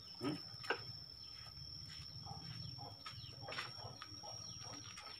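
Faint, scattered light clicks and clinks of metal parts being handled on an aluminium cylinder head, over a low steady background hum.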